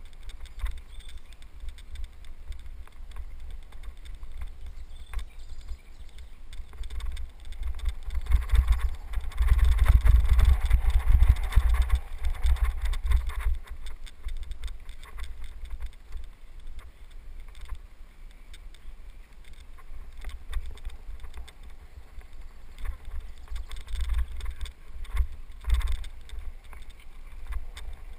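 Wind buffeting and low rumble on a helmet-mounted camera while riding a bicycle down a dirt trail, with scattered knocks and rattles from the bike over the rough ground. The rumble is loudest for a few seconds about a third of the way in.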